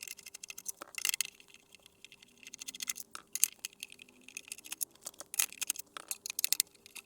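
Screws being undone from the back of a soldering station's case with a screwdriver: an irregular run of sharp clicks, ticks and scrapes, over a faint steady hum.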